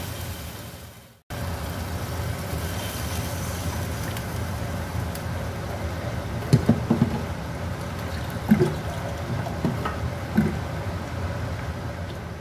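Shrimp sauce simmering in a wok on a gas stove: a steady bubbling hiss with a few louder bubble pops between about six and ten and a half seconds in. The sound drops out suddenly for a moment about a second in.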